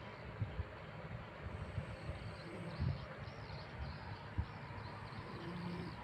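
A sleeping person snoring, two rough, low snores about three seconds apart.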